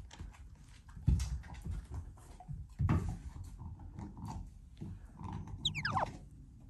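A Shiba Inu growling low and rough close to the microphone while being petted, in short bouts about a second and three seconds in. A quick falling whistle comes just before the end.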